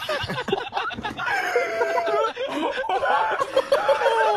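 Several people laughing hard together, in short overlapping bursts of cackling.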